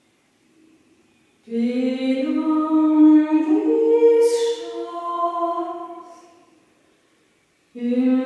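A woman singing a cappella, her solo voice unaccompanied. A sung phrase begins about a second and a half in, is held and fades away, and a new phrase starts near the end.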